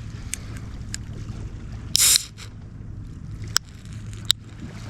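Beer can being cracked open: a few small clicks of the pull tab, then a short, sharp hiss of escaping gas about two seconds in, over a steady low background rumble.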